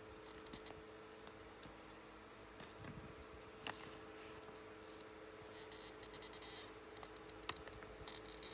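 Faint handling sounds of a pair of metal dividers: a few small sharp ticks as the points are set and pressed against paper plans and a wooden wheel rim, over a faint steady hum.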